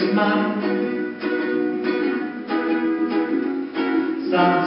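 Solo ukulele strummed, playing a run of chords with no singing.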